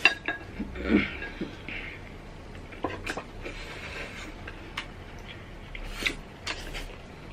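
People eating close to the microphone: chewing and mouth noises, with scattered short sharp clicks and a fuller mouth sound about a second in.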